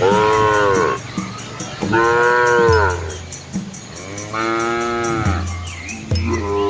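Cows mooing: four long moos about two seconds apart, each rising then falling in pitch.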